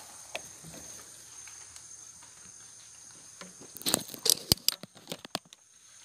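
Rustling and crackling of leaves and twigs in a quick cluster of sharp clicks about four seconds in, as someone moves through dense undergrowth, over a steady high drone of forest insects.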